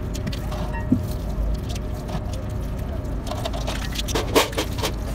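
A greasy roller bearing being scrubbed by hand with a rag in a basin of washing liquid: wet sloshing and squelching with sharp metal clinks, a single clink about a second in and a cluster of clinks and knocks near the end. A low steady rumble runs underneath.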